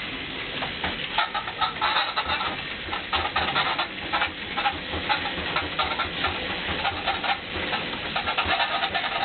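Home elliptical trainer squeaking over and over as a toddler pushes its handles and pedals.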